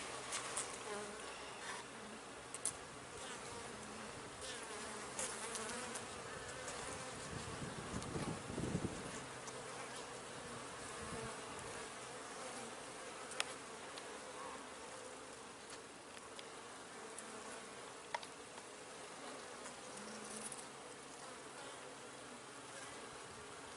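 Honeybees in an open hive buzzing: a steady hum of many bees. A few sharp clicks come through, and a brief low rumble is heard about eight or nine seconds in.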